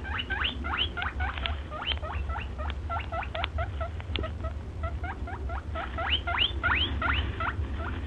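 A rapid series of high, squeaky animal calls, each one sliding upward in pitch, several a second, over a steady low rumble.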